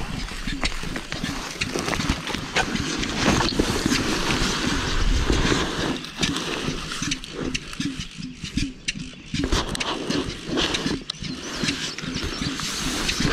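Footsteps crunching through dry crop stubble at a walking pace, about two steps a second, with the rustle of a furry decoy being carried and wind rumbling on the microphone.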